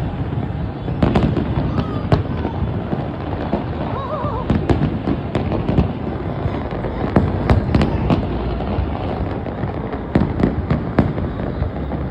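Fireworks display: many sharp bangs and crackling reports, irregular and overlapping, over a continuous low rumble.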